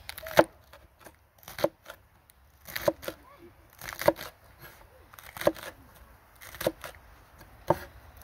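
Kitchen knife chopping lettuce on a wooden cutting board: seven evenly paced cuts, each ending in a sharp knock of the blade on the board, about one every second and a quarter.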